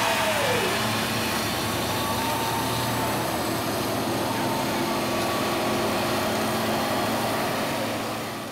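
Car doing a burnout: engine held at high revs with the tyres spinning on the pavement, a steady roar that fades out near the end.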